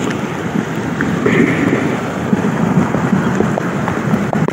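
Heavy rain and rushing floodwater, a loud, steady noise with its weight low down.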